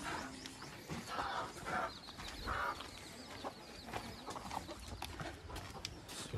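Chickens clucking a few short times, mixed with footsteps scuffing on a dirt path.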